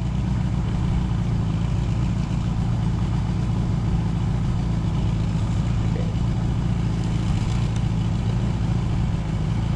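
Outboard motor on a 16-foot Bass Tracker boat running steadily underway, an even low hum that holds without change.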